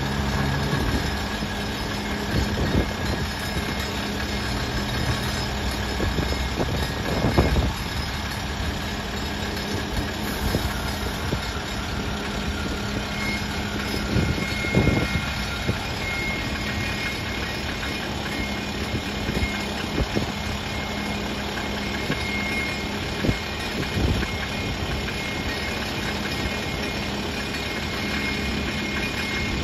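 Diesel engine of a 2009 International Vactor sewer-cleaning truck running steadily while its hydraulic boom swings. A few brief knocks stand out over the steady running.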